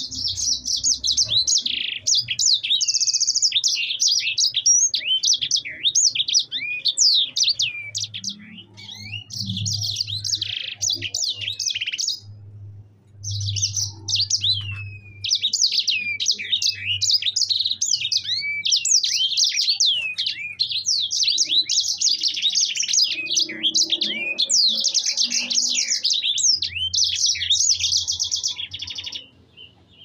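Caged sanger finch singing hard and without let-up: long rolling runs of rapid high chirps, trills and down-slurred notes, with a short break about twelve seconds in. A faint low hum sits underneath at times.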